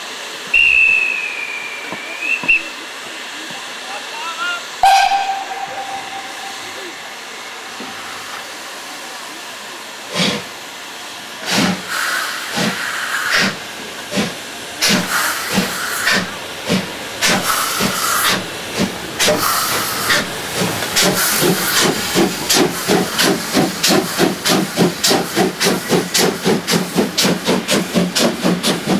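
Steam locomotive 78 468, a Prussian T 18 tank engine, starting its train from a stop. A short high whistle sounds first, then the engine's steam whistle about five seconds in. Around ten seconds in the exhaust beats begin, slow at first and quickening steadily as it gets under way, with steam hissing.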